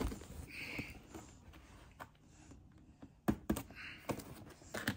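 Toy box packaging being handled during an unboxing: soft rustling and a few sharp clicks and taps, the loudest a little past the middle.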